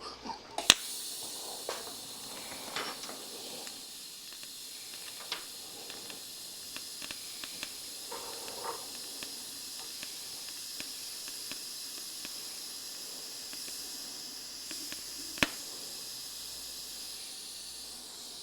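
TIG welding arc running on a motorcycle fuel tank seam: a steady hiss with a high whine that starts with a sharp crack under a second in and cuts off abruptly at the end, with scattered faint ticks along the way.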